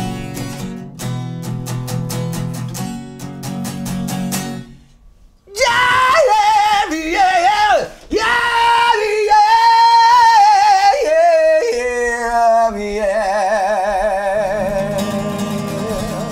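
An acoustic guitar is strummed in an even rhythm and stops after about four seconds. A high singing voice without words then comes in loud, sliding and running up and down in pitch. Near the end it holds long notes with vibrato as the strummed guitar returns underneath.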